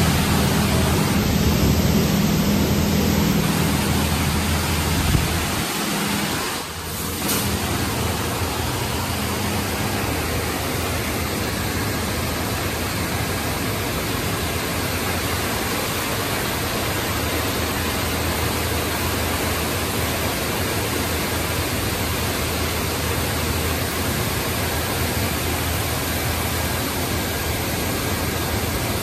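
D&S 5000 touchless car wash gantry spraying high-pressure water over a pickup, a steady hiss of spray. A low hum sits under it for the first five seconds or so, then drops away.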